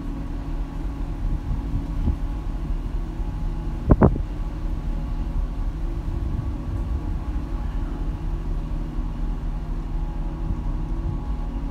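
Steady low hum of a large car ferry's machinery running while it lies at the quay. A single thump sounds about four seconds in.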